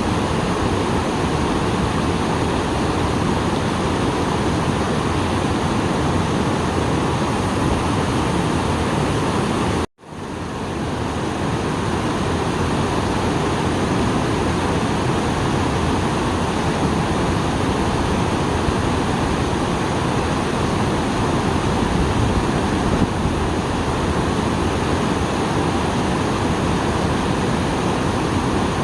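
Small waterfall after rain, water pouring and splashing in a steady, full rush. About ten seconds in, the sound cuts out for a moment and then fades back up.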